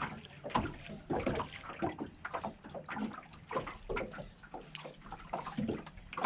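Small waves lapping and slapping against an aluminum fishing boat's hull, in short irregular splashes.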